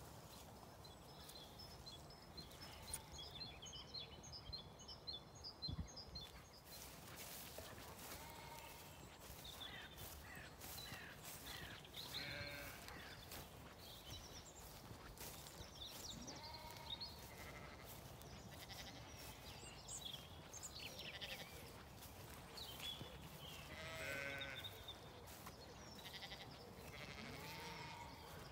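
Distant sheep bleating faintly several times, with short high chirps in between.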